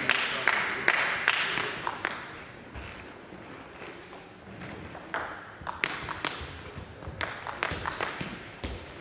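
Clapping dies away over the first second or two. Then a plastic table tennis ball clicks repeatedly as it is bounced between points, with short high squeaks, likely from players' shoes on the hall floor.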